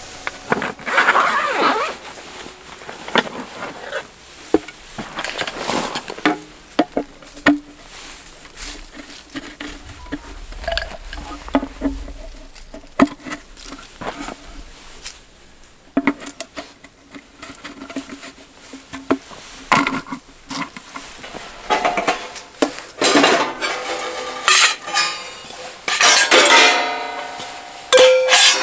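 Irregular clatter, knocks and metal clinks of camp gear being set up: a folding camp table, then a metal fire pit being placed, with the loudest, densest clanking in the last several seconds.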